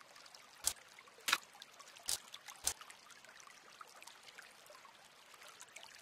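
Common kingfisher beating a stickleback against a branch: four sharp knocks about two thirds of a second apart in the first three seconds, as the bird stuns the fish before eating it.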